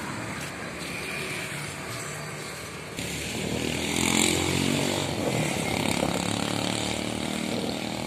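A small petrol engine running, growing louder about three seconds in and easing off slightly toward the end.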